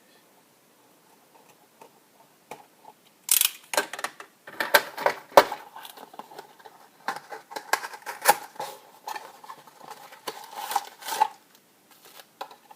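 Toy box packaging being handled and opened by hand: a dense, irregular run of crackles, scrapes and sharp clicks, starting about three seconds in and stopping shortly before the end.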